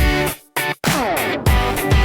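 Music with a guitar and a heavy beat, dropping out briefly about half a second in before the beat comes back, with notes sliding down in pitch.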